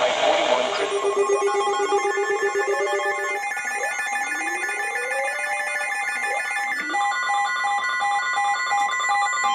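Several weather radio receivers sounding their electronic alert alarms at once as a special marine warning comes in: overlapping steady tones and on-off beeps at different pitches, with a few short rising chirps.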